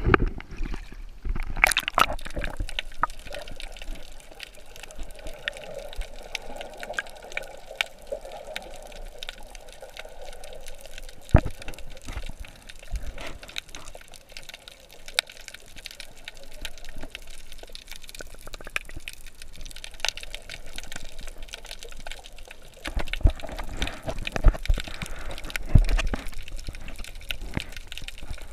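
Seawater moving around a camera dipped at and below the sea surface: muffled sloshing and rushing water with scattered sharp clicks, busier and louder again near the end.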